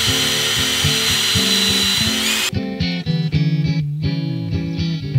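Cordless drill running steadily for about two and a half seconds with a high whine, then stopping, over background rock music with guitar that continues throughout.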